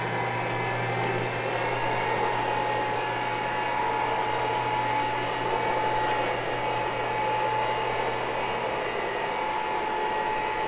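Electric carpet-cleaning machine running steadily: an even motor whir with a constant high hum, no change in pace.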